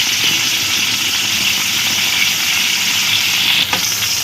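Whole pointed gourds (potol) frying in hot refined oil in a kadai, with a steady sizzle, and one brief click about three and a half seconds in.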